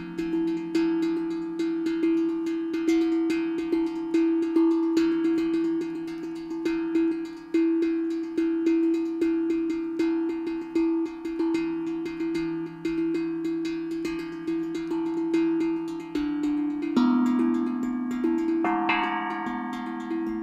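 Steel tongue drum played with the fingers: a quick, continuous stream of struck metal notes, each ringing on, over a low note that keeps sounding. The notes move higher about seventeen seconds in.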